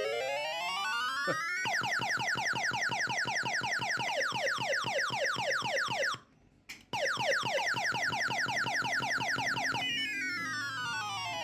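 Electronic arcade machine sound effects: a siren-like tone sweeping up and down, then a long run of quick falling chirps, several a second, which breaks off briefly about six seconds in. The up-and-down sweeps return near the end.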